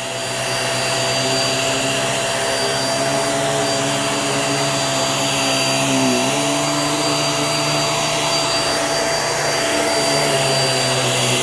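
Hoover React QuickLift bagless upright vacuum running on a rug with a steady motor hum; its pitch dips briefly and recovers about six seconds in.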